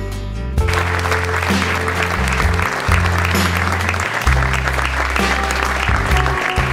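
Audience applauding, the clapping starting about half a second in, over background music with a steady bass line.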